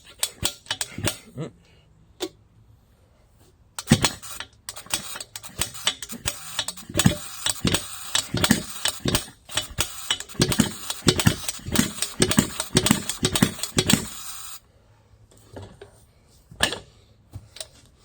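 Barco H-6 gasoline jackhammer firing and hammering in a fast, irregular clatter for about ten seconds, starting about four seconds in and then suddenly dying, with a few clicks before it. The owner puts the poor running down to it not getting enough fuel.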